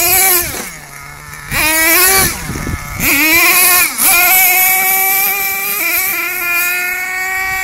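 Axial .32 two-stroke nitro engine in a Thunder Tiger Monster GT 4.6 RC monster truck, revving up and down in three short bursts of throttle. From about four seconds in it holds a high, steady whine at full throttle.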